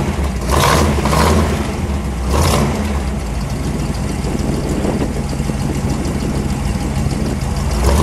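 1957 Ford Thunderbird's 312 V8 heard at the exhaust outlets in the rear bumper: a low rumble, with a few quick throttle blips in the first few seconds, then settling into a steady idle, and one more blip near the end.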